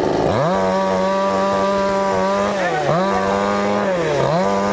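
Chainsaw engine running at high throttle. Its pitch rises sharply as it revs up just after the start, then sags twice and recovers, as the chain takes load cutting wood.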